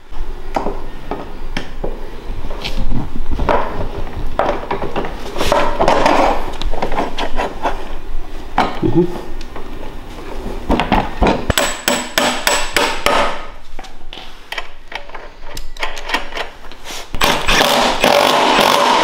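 Metal knocks and clanks as a mini bike's front wheel, spacers and axle are fitted between the forks. Near the end, a Milwaukee Fuel cordless impact wrench rattles steadily as it runs the axle nut down.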